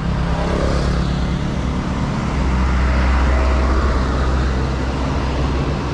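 Road traffic, with a motor vehicle's low rumble swelling about two seconds in and easing near the end.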